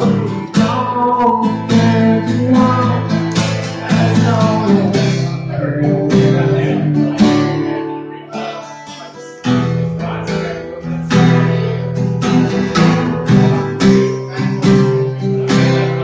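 Acoustic guitar strummed in a steady rhythm, played live. The strumming thins to a few quieter notes about eight seconds in, then comes back full about a second and a half later.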